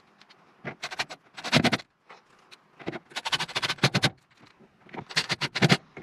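Cordless drill driving roofing screws into an RV roof vent's trim, in four short bursts of whirring, the longest about a second, with pauses between screws.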